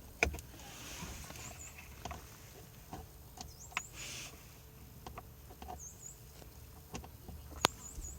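Scattered small clicks and taps of a screwdriver and plastic trim as the steering column's lower cover is worked loose, with a sharp click about a quarter second in and another near the end, and a brief rustle around the middle.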